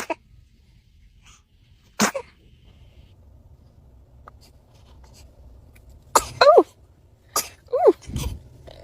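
A baby sneezing: one sharp sneeze at the start and another about two seconds in, then a quick run of four or five smaller sneezes from about six seconds in, some with a short squeaky voiced edge.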